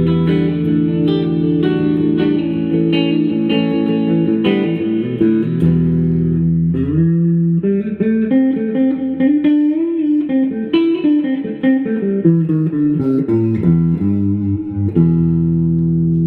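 Electric guitar played through a 1973 Fender Super Reverb's vibrato channel. Held chords come first, then a single-note lead line with string bends in the middle, ending on a sustained ringing chord about fifteen seconds in.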